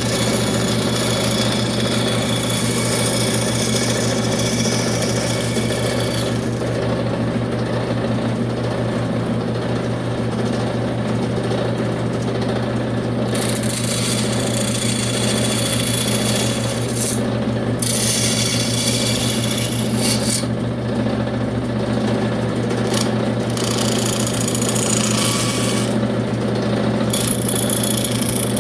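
Electric power tool running steadily on wood, its motor hum constant, with a high hiss that cuts out and returns several times as it bites into and lifts off the work.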